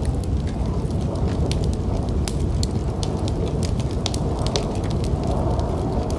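Wood fire in a fireplace crackling, with frequent small sharp pops and snaps at irregular intervals over a steady low rumble.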